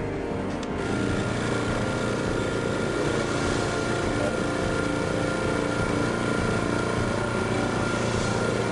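Vacuum pump running steadily, evacuating the bell jar, with a thin high whine that comes in about a second in.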